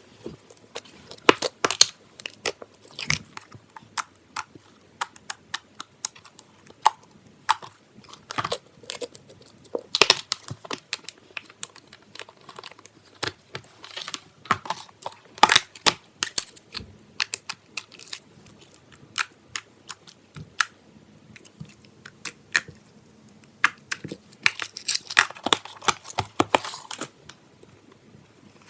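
Slime being squished and poked by hand: a run of irregular sharp clicks and crackles, densest near the end.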